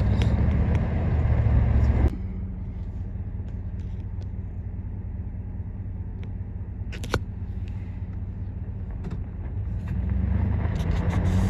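Vehicle engine and road noise heard from inside the cab while driving slowly: a steady low rumble that drops suddenly to a quieter hum about two seconds in and swells again near the end. A single sharp click comes around the middle.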